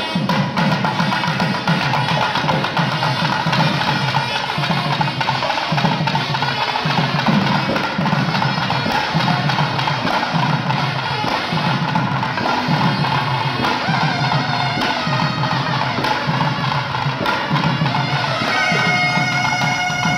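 Kerala temple percussion ensemble: chenda drums play a busy pattern over a steady beat that repeats a little more than once a second, with held wind notes behind them. Near the end a reed pipe comes in clearly with long, steady notes.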